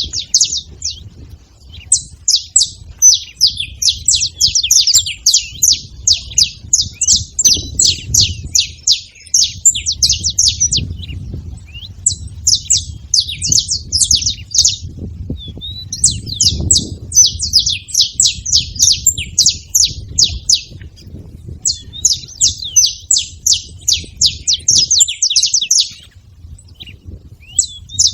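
Saffron finch singing: bouts of several seconds of rapid, high chirping notes, broken by short pauses.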